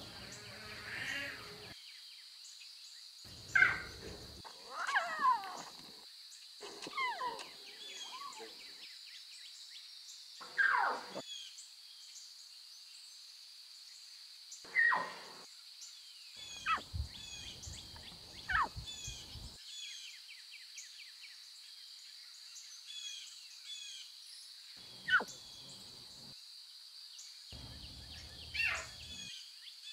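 Lion cubs mewing: short calls that slide down in pitch, about ten of them at irregular intervals, over a steady high-pitched drone.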